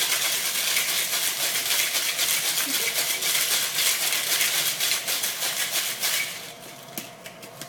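Ice rattling hard in a metal cocktail shaker, shaken fast and evenly, the wet shake of an egg-white cocktail. The shaking stops about six seconds in, followed by a few light metallic knocks.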